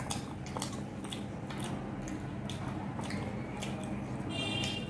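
Close-up chewing and wet, squishy mouth sounds of people eating chilli chicken and paratha, with many small sharp clicks, over a steady low hum.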